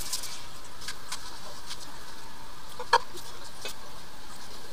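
Small clicks and squeaks of hands in rubber gloves working around a toilet, with one sharper knock about three seconds in, over a steady hiss.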